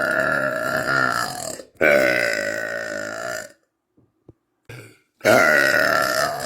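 A young woman burping: long, drawn-out, pitched burps, each lasting about two seconds, one after another with short gaps. A few faint clicks fall in the pause before the last burp begins about five seconds in.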